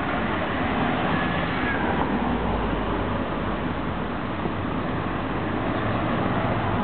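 Steady street noise around a tram standing at a stop, with a short faint high-pitched whine about a second in.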